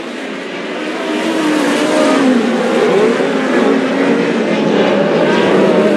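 Several open-wheel dirt-track race cars running together, their engines revving up and down as they lap. The sound grows louder from about a second in.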